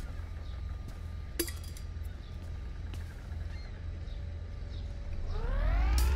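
Low outdoor rumble with faint bird chirps, and a single metallic clink about a second and a half in: a coin dropping into a tin can. Near the end a rising sweep of several tones swells in.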